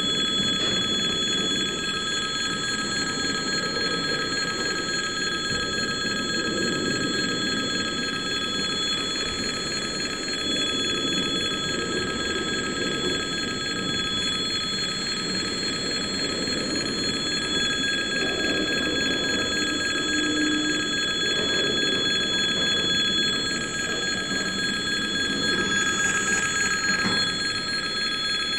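Railway level-crossing warning bell ringing without a break, over the low rumble of a slow freight train's container wagons rolling past.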